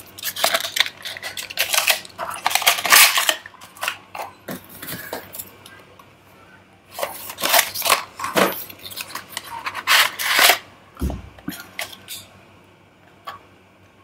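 A toy car's cardboard box and clear plastic blister shell being handled and opened: crackling and rustling in several spurts, with a dull thump about eleven seconds in.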